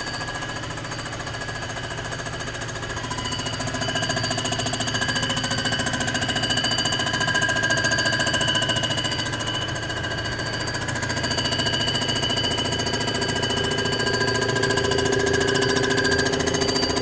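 Surfacing machine milling the deck of a Rambler 327 cylinder head: a steady, rapid chatter of the cutter with ringing whine tones. It grows louder a few seconds in and swells and eases as the cut goes on.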